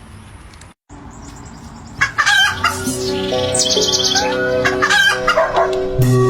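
Chickens clucking and crowing, mixed with background music of held notes that comes in about two seconds in, after a brief dropout.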